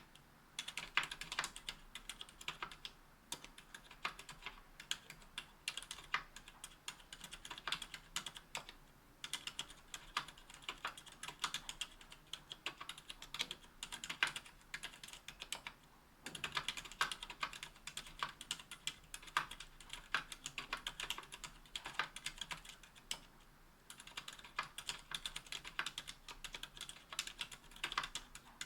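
Typing on a mechanical keyboard with Cherry Silent Red linear switches under GMK keycaps on an aluminum-cased 60% board: a fast run of soft, muted keystrokes, with brief pauses every few seconds. The switches' dampers take the sharp bottom-out and return clack off each press.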